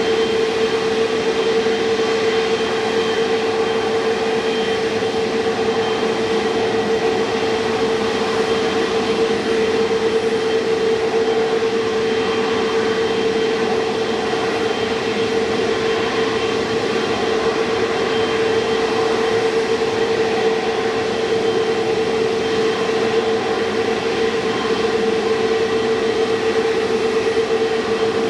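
Airliner jet engines running steadily: an even rushing noise with a constant low hum and a thin high whine that hold level, without rising or falling.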